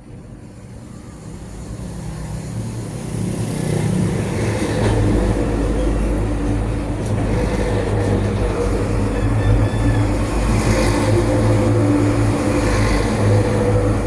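A motor vehicle's engine running, growing louder over the first four seconds and then holding steady.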